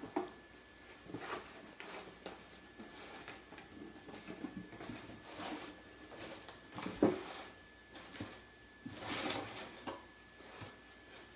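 A cat batting at and shoving a cardboard cracker box across a tile floor: scattered scrapes, rustles and knocks of cardboard, the loudest knock about seven seconds in.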